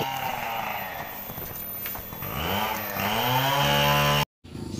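A small petrol engine running: its pitch drops over the first second or so, then rises again about two and a half seconds in and holds. It cuts off abruptly near the end.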